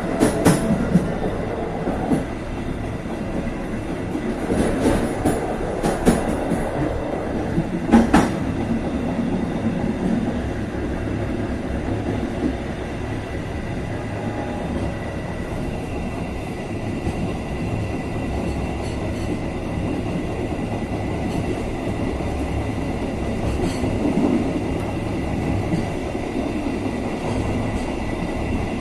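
KA Serayu passenger train running along the rails: a steady rumble of wheels on track, with a few sharp clanks in the first eight seconds and a faint steady high-pitched tone throughout.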